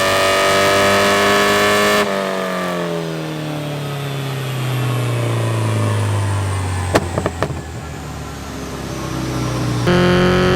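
Porsche 944 2.5-litre 8-valve four-cylinder on a dyno, held at steady high revs, then cut abruptly and winding down in a long falling note. A few sharp exhaust pops of backfire crackle come near the low point, and then it is back at steady high revs near the end.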